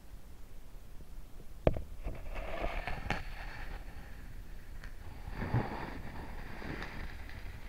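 Underwater ambience picked up by a submerged camera: a steady low rumble, a sharp knock just under two seconds in, and two stretches of hissing crackle.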